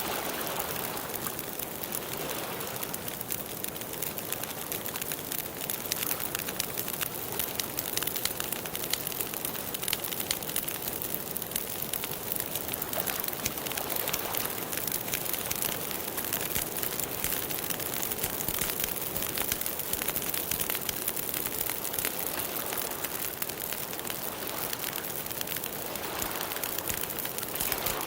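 Wood campfire burning and crackling, a steady stream of small sharp crackles over a soft hiss.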